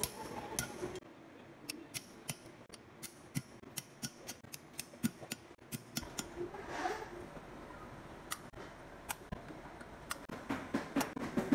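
A series of sharp metallic clicks and taps, about two to three a second, from a valve collet installer tool being pressed and struck with a hammer on the valve spring retainers of a Toyota Camry 3.0 cylinder head as the collets snap into place on the valve stems.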